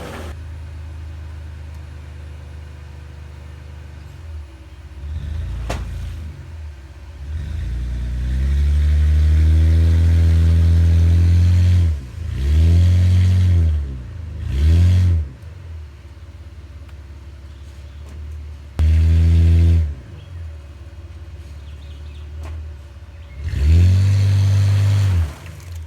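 Pickup truck engine revving hard in repeated bursts over a low running rumble, as it is driven through deep mud. There are about five surges that climb and fall in pitch, the longest lasting about four seconds, and a single sharp click near the start.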